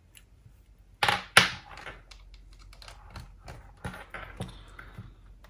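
Plastic clicks and clatter from handling a cassette Walkman and headphones: two loud clacks about a second in, then a run of lighter, irregular clicks.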